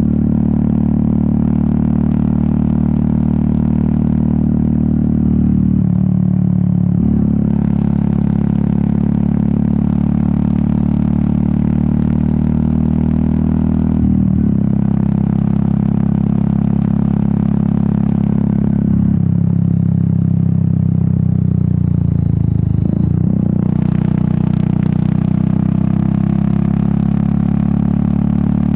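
Royal Enfield Meteor 350's single-cylinder engine and exhaust running steadily under way, its note stepping to a different pitch several times as the speed changes.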